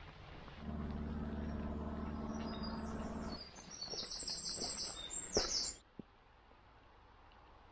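A bird sings a quick run of high, repeated chirps. Under it, for the first half, is a steady low hum that starts just under a second in and stops at about three and a half seconds. Everything cuts off sharply about six seconds in, leaving only faint background.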